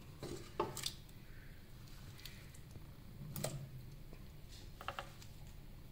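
Slices of guava being dropped by hand into a metal saucepan with a little water, making a few faint, irregular clicks and taps.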